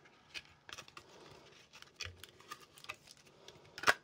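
Clear plastic packaging crinkling, with small clicks and rustles as a little plastic figure is handled in it. The sharpest crinkle comes near the end.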